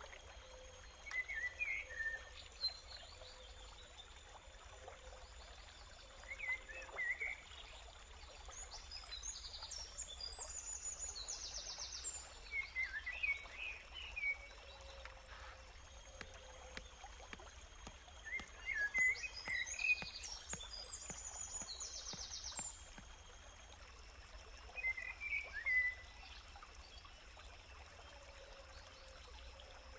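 Forest ambience: birds calling in short twittering bursts every few seconds, over thin steady high-pitched tones and a faint hiss of running stream water.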